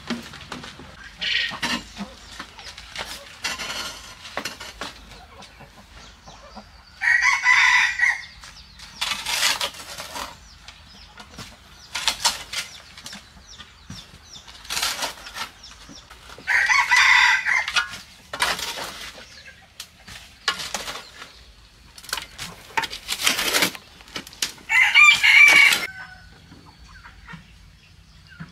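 A rooster crows three times, about nine seconds apart; the crows are the loudest sounds. In between, a metal shovel scrapes and scoops soil in a steel wheelbarrow.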